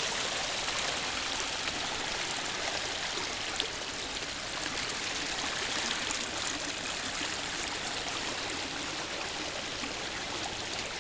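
A small brook swollen by heavy rain, its water rushing and babbling steadily.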